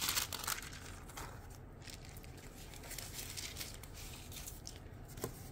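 Paper rustling and crinkling as a model-kit decal sheet and its tissue-paper cover are handled and set down. It is loudest in the first half second, followed by faint scattered rustles and a small tap near the end.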